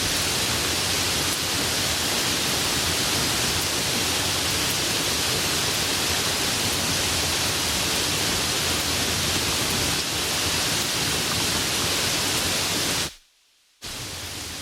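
Light rain falling, a steady, even hiss of many drops. About thirteen seconds in it cuts out for under a second, then comes back quieter.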